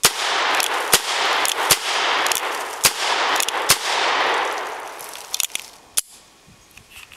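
A string of gunshots, roughly one a second, over a loud rushing noise that sets in with the first shot and fades out after about five seconds.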